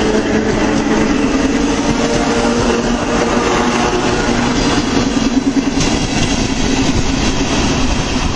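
Electric multiple-unit commuter train passing close by: a loud, steady rush of wheel and rail noise with a low motor hum that fades a little past halfway as the last cars go by.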